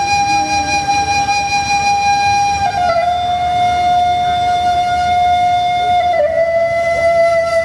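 A wind instrument in the dance music holding one long note. The note steps slightly lower about three seconds in and again about six seconds in, over a faint low background.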